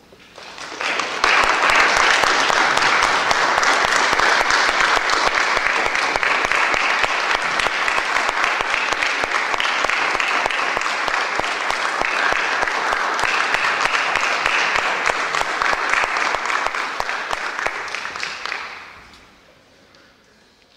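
Audience applauding at the end of a concert piece: dense, steady clapping that swells up within the first second or so and dies away after about eighteen seconds.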